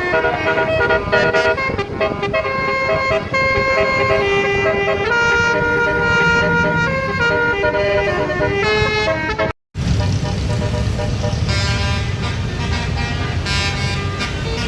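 Tour bus's basuri 'telolet' multi-note air horn playing a melody, its notes stepping up and down in pitch. About ten seconds in the sound cuts off abruptly, then a bus engine is heard running with fainter horn notes.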